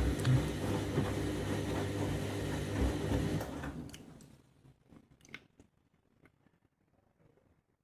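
Candy washing machine running on a deep rinse: a steady motor hum with mechanical noise that winds down and stops about four seconds in, followed by a few faint clicks.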